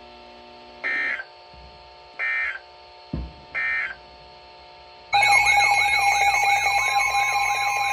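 Three short bursts of Emergency Alert System digital data tones about a second apart, the end-of-message code after the repeated warning. There is a low thump just after the second burst. About five seconds in, a loud warbling electronic alert tone starts and holds, opening the next warning.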